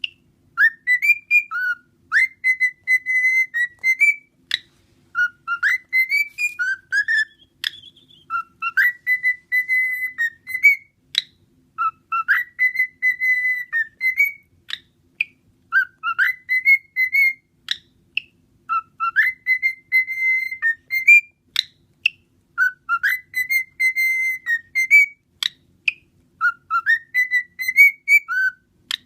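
Cockatiel whistling a learned tune, the same short phrase over and over, about every three seconds: a few quick notes, a held note, then an upward slide. Short sharp chirps or clicks fall between the phrases.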